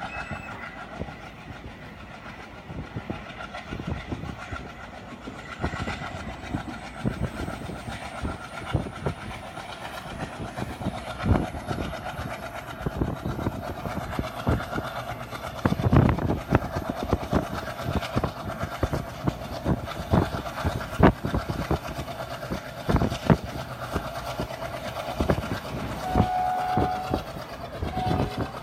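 Passenger train running at speed, heard from inside a coach: steady rumble with the wheels clattering over rail joints, the clacks coming irregularly and loudest about halfway through. A train horn sounds briefly near the end.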